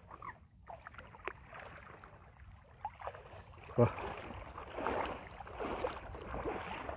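Water splashing and sloshing around someone wading. It is faint at first and swells in irregular surges over the last three seconds.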